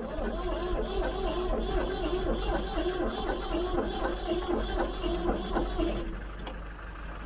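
Starter motor cranking the Ford 3000's three-cylinder diesel engine over in an even, rhythmic chug for about six seconds, then stopping. The engine is wanting to go but does not start.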